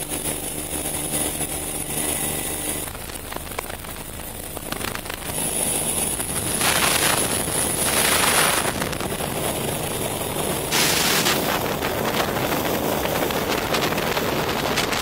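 Helicopter rotor and turbine running steadily overhead, heard through a harness camera hanging in the downwash, with a high turbine whine and wind buffeting the microphone. The wind noise surges loudly twice: around seven to eight seconds in and again at about eleven seconds.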